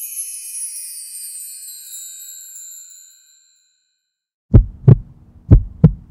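A high, glittering magic-sparkle chime that fades out over about three seconds. After a short silence, a heartbeat sound effect begins: two heavy double thuds (lub-dub) about a second apart.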